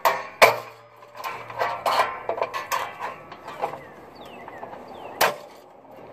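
Clacks and knocks of long needle-nose pliers working a brake shoe return spring on an M923A1 5-ton truck's rear drum brake. There are two sharp loud clacks, one just after the start and one about five seconds in, with lighter clicks between.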